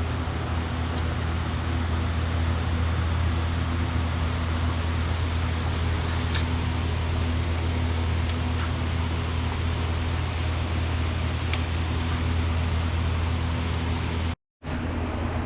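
Steady whoosh of many GPU cooling fans on running cryptocurrency mining rigs, with a steady low hum underneath. The sound drops out for a split second near the end.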